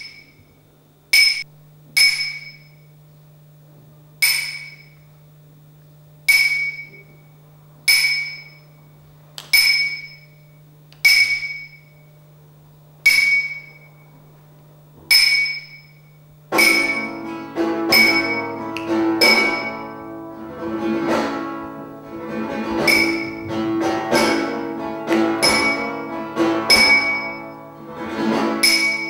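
Music: a single high ringing note struck about every one and a half seconds over a low steady drone. About halfway through, a denser layer of pitched instruments enters and plays under the strikes.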